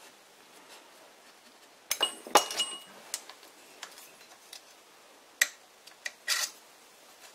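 Light metallic clinks of a steel rule set against the faced end of a steel workpiece in a lathe chuck. The loudest come about two seconds in and ring briefly; a few single clicks follow later.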